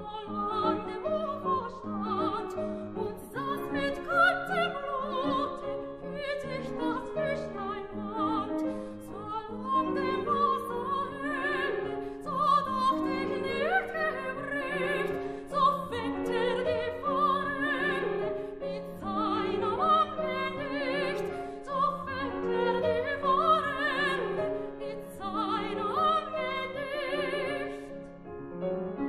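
Soprano singing a German art song in classical operatic style, with vibrato, accompanied by a grand piano playing a steady, rippling figure. Near the end the voice stops and the piano carries on alone.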